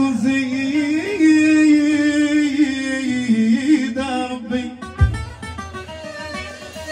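Live Moroccan folk song: a man sings a long, wavering held note over violin and string accompaniment, with a deep drum stroke about five seconds in.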